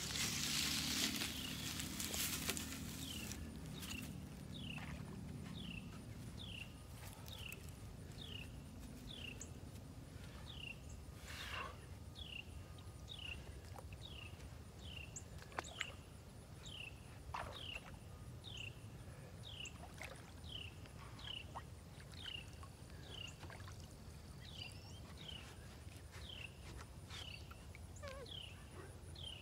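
Water sloshing from wading in the shallows for the first couple of seconds, then a bird calling the same short, downward-sliding note over and over, a little more than once a second. A faint, steady high insect trill runs underneath.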